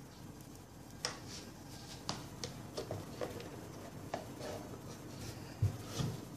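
Hands handling and turning over a homemade speaker box on a desk: a scattered series of light clicks and taps, with two duller thumps near the end.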